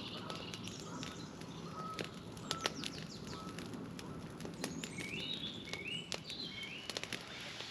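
Birds calling outdoors, with a short stepped call of a few notes repeated three or four times in the middle, over a faint steady background broken by scattered sharp clicks.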